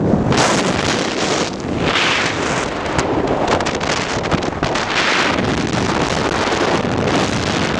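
Wind rushing over the microphone from a moving car, a loud hiss that swells and eases several times, with the car's low road rumble underneath.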